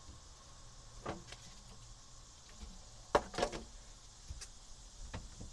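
Gloved hands working a cleaning rag: a few short rubbing and handling sounds, the loudest a cluster a little past the middle.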